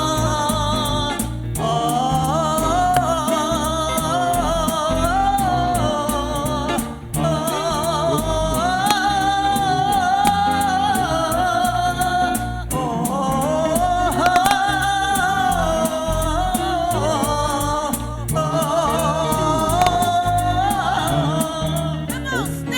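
Doo-wop vocal group singing close harmony on long held, wordless notes over instrumental accompaniment, in phrases about five seconds long.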